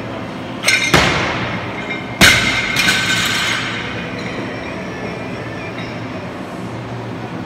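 Loaded barbell with bumper plates clanking against the gym floor: two knocks about a second in, then a loud bang about two seconds in with the metal bar and plates ringing as it dies away, over a steady background hum.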